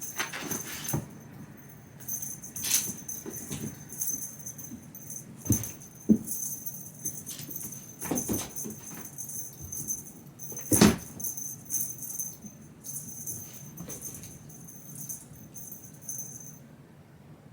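Metallic jingling and rattling with a steady high ring, broken by scattered knocks throughout; the jingling stops shortly before the end.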